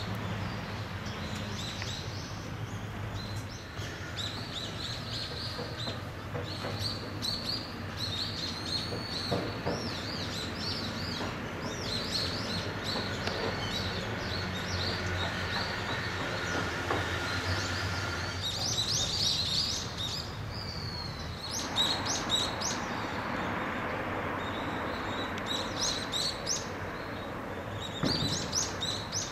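Small birds chirping and twittering in many short, high calls, busiest about two-thirds of the way through and again near the end, over a steady low background rumble.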